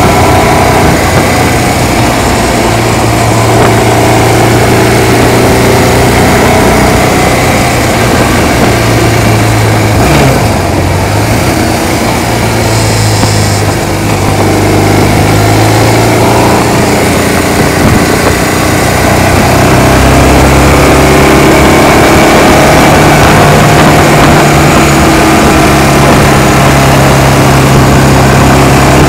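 Motorcycle-and-sidecar engine running steadily while riding, over a constant rush of wind noise. The engine note dips and climbs back briefly about ten seconds in, then settles on a higher, steady note in the last third.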